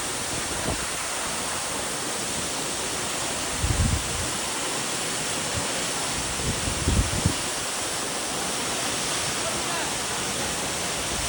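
Waterfall rushing in a steady, even roar of falling water, with brief low rumbles on the microphone twice.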